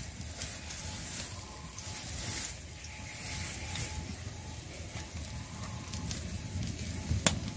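Gram-flour-battered pumpkin flower fritters deep-frying in refined oil in an iron kadai, a steady sizzle that swells and fades, with a low rumble underneath. A single sharp click about seven seconds in.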